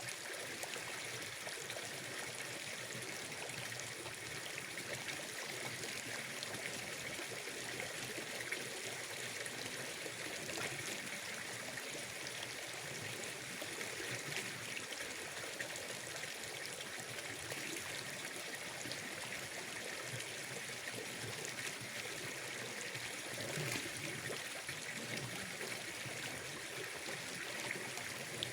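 Gentle, steady trickle of running water, with a constant high hiss over it.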